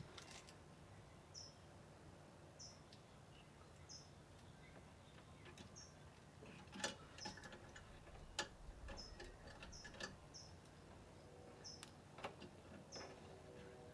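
Faint, quiet scene: a small bird chirping, one short high note about every second or so, with a few sharp clicks and taps of small parts being handled, the loudest about seven and eight and a half seconds in.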